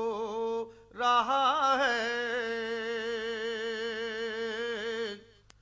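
A male voice singing an Urdu naat, drawing the syllables out into long wavering notes. One held note breaks off early, and after a short breath a single note is sustained for about four seconds before stopping.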